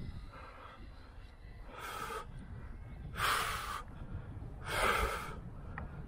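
A person breathing hard, three loud gasping breaths about a second and a half apart, over a low rumble of wind on the microphone.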